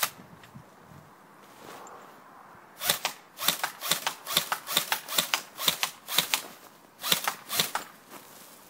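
Airsoft Colt M4A1 replica rifle firing a quick, uneven string of about twenty sharp shots, starting about three seconds in and stopping near the end.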